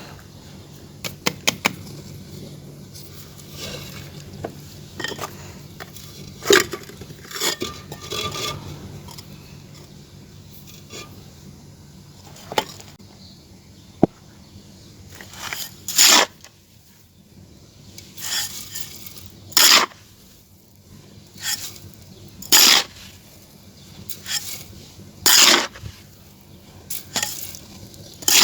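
Hard clay or cement pieces being handled: irregular scraping, tapping and light clinking, with a few louder single scraping strokes spaced a few seconds apart in the second half.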